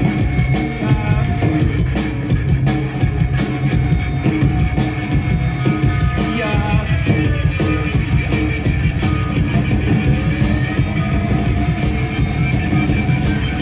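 Rock band playing loud and live: electric guitars, keyboards and a drum kit with a steady beat, heard through the PA from the crowd.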